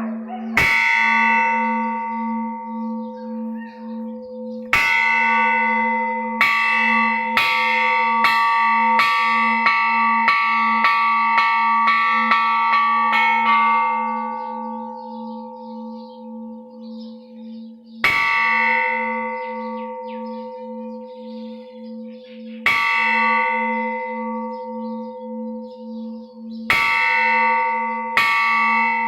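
Thai temple bell struck over and over: a run of strikes that quickens to about two or three a second, then stops and rings out for several seconds, followed by single strikes a few seconds apart and a new run beginning near the end. Under the strikes a low hum from the bell pulses steadily.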